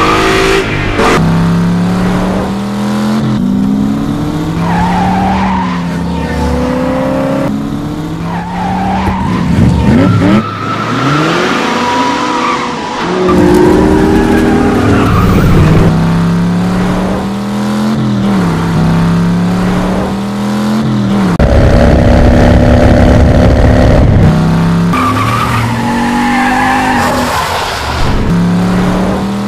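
Cars' engines revving hard, rising and falling in pitch again and again, with tire squeals and skids, in an edited sequence that cuts abruptly between shots.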